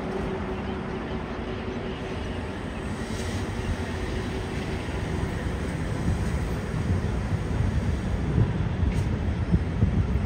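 Passenger train running on the rails as it pulls away from a station, heard from inside the coach: a steady low rumble of wheels and running gear with a hum that fades after a few seconds. The rumble grows louder and more uneven from about halfway as the train gathers speed.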